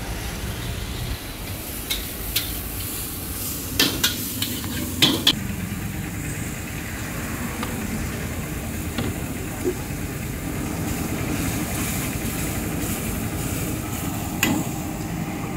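Manchurian being stir-fried in a wok at a street food stall: steady sizzling with a few sharp clanks of the ladle against the wok, loudest in a cluster about four to five seconds in.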